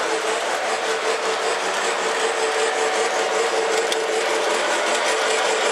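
Model Hudson steam locomotive running along the track toward the listener: a steady rolling, whirring noise with a steady motor hum.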